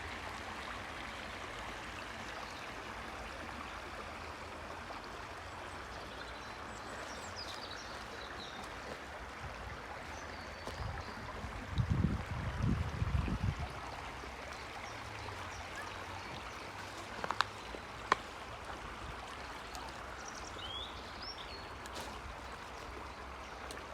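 A small stream trickling steadily. A louder low rumble comes about halfway through, with a couple of sharp clicks soon after and a few faint high chirps.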